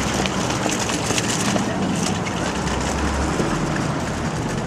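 City street noise: a steady rumble of traffic with scattered rustling and clatter over it.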